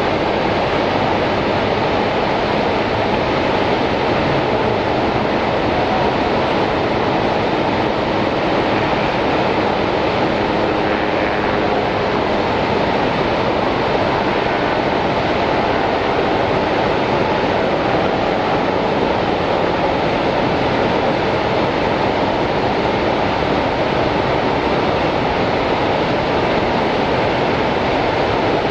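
Steady rushing of a large volume of water going over the American Falls at Niagara Falls, an even unbroken noise strongest in the low and middle range.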